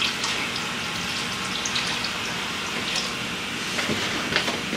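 Large pot of water heating on a stove burner turned up high: a steady hiss, with a few light clicks and knocks near the end.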